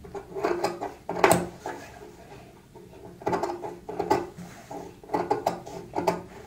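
Tailor's shears snipping through fabric in a series of short, irregular clicking cuts as the excess cloth around a neckline seam is trimmed off.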